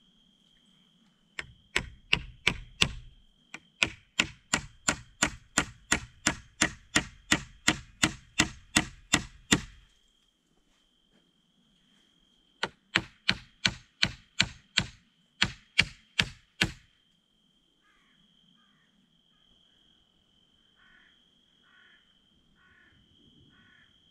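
Hatchet striking a wooden pole in three runs of steady, even blows, about three a second, with a pause between runs. Crickets chirr steadily underneath.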